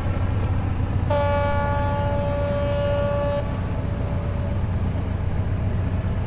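A steady low rumble with a long, horn-like single-pitched tone held for about two seconds, starting about a second in.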